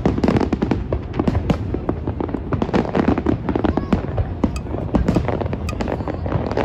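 Aerial fireworks shells bursting in a dense barrage: many irregular, overlapping bangs and crackles over a continuous low rumble.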